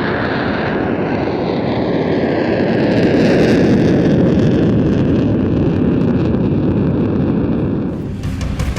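Saab JAS 39C Gripen's afterburning turbofan running at high power as the jet goes by, a loud rushing noise with a whine falling slowly in pitch; it dies down near the end.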